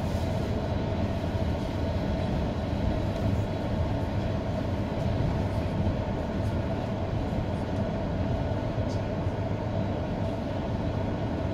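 A passenger train running steadily along the track, heard from inside the carriage: an even low rumble with a faint steady whine over it.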